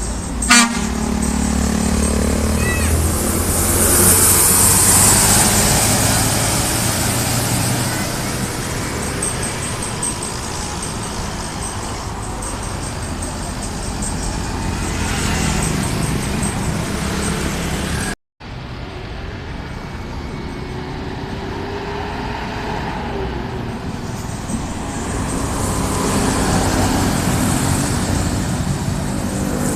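Street traffic passing: a steady wash of cars and other vehicles on the road, with a sharp click about half a second in and a brief dropout about two-thirds of the way through.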